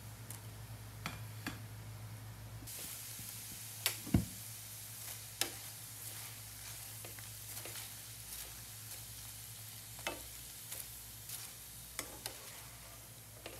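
Chopped tomatoes and onion sizzling steadily in a nonstick frying pan while being stirred, with scattered taps and knocks of the spatula against the pan. The loudest knock comes about four seconds in.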